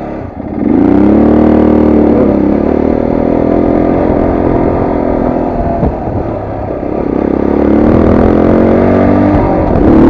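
Motorcycle engine heard from the rider's seat as the bike accelerates away. The revs climb about a second in, ease off briefly around the middle, then rise again.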